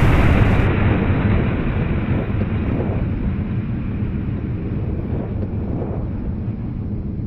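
Low rumbling roar of a rocket launch fading away after lift-off, slowly growing quieter and duller.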